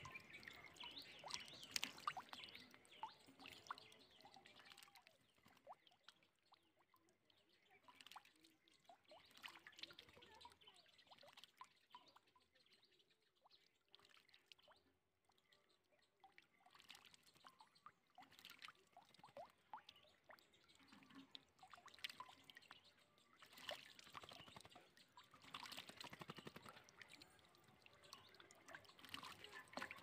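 Faint water splashing and dripping in a metal bucket as a common myna bathes in it, dipping in and flapping its wings. The splashes come in scattered bursts, busier near the start and again in the last several seconds.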